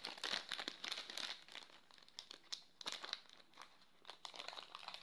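Crinkly rustling and clicking as things are handled and rummaged through close to the microphone, in a dense burst at the start and a shorter one about three seconds in.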